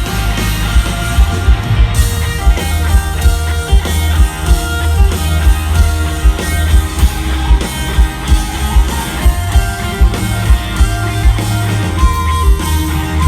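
Grunge rock band playing live through a stadium PA: electric guitars over bass and drums, with a heavy beat about twice a second. Near the end a single high note is held.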